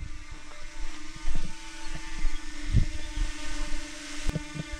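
Wind buffeting the microphone, with a steady hum underneath and a couple of faint knocks.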